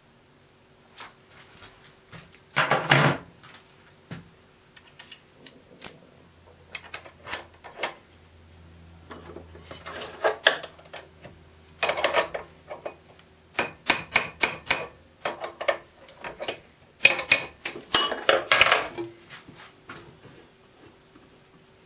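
Metal clinks and clatters from hand work at a small metal lathe: cast wheels, calipers and tools being handled and set down on the steel cross-slide and chuck. They come in irregular bunches of sharp knocks, with a faint low hum for a few seconds in the middle.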